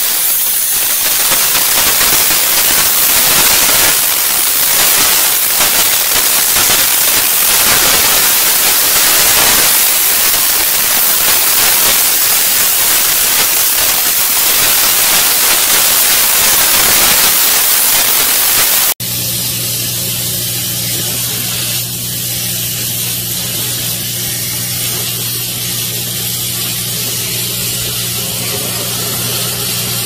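A steam cleaner's nozzle jets steam onto a wall-mounted air conditioner's evaporator coil, making a loud, steady hiss. After a cut about two-thirds of the way in, the hiss is quieter and a steady low hum runs under it.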